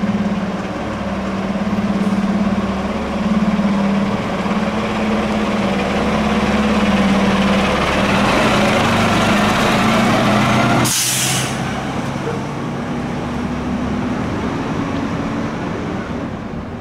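Heavy fire apparatus engine running steadily, with a short, sharp hiss of air brakes about eleven seconds in.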